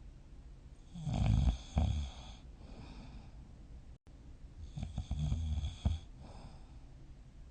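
A sleeping person snoring: two snores, each about a second and a half long, roughly four seconds apart.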